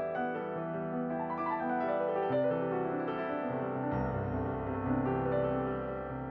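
Background piano music, gentle, with a low bass line coming in about four seconds in.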